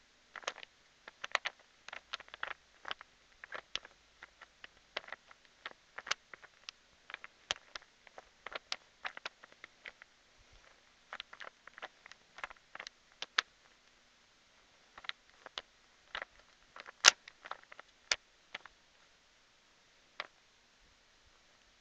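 3x3 Rubik's Cube being turned quickly by hand during a solve: irregular sharp plastic clicks as the layers are twisted, coming in quick clusters, with a short pause about two-thirds through and one louder click soon after it.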